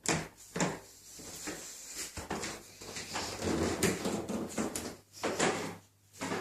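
Footsteps and creaks on old wooden floorboards: an irregular string of knocks and scrapes.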